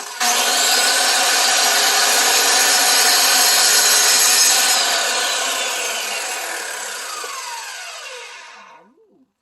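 Electric wet/dry cutter cutting through a rock at full speed, then switched off about four and a half seconds in, its whine falling in pitch as the blade winds down and stops near the end.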